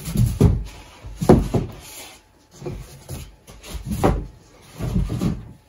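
Foam packing pieces and a cardboard box being handled: five separate bursts of rubbing and knocking, about a second apart.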